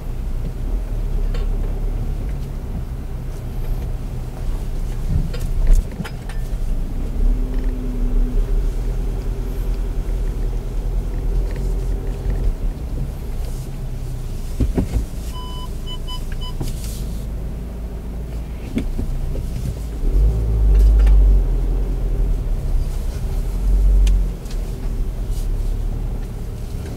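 Audi Q5 driving slowly over a rough dirt track, heard from inside the cabin: a steady low engine and road rumble with occasional knocks and clunks from the bumpy ground. About halfway through, three short electronic beeps sound, and near the end the rumble swells louder twice as the car works over the terrain.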